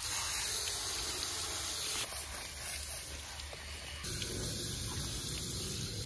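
Running water from a hose spraying and hissing, with abrupt changes in level about two and four seconds in.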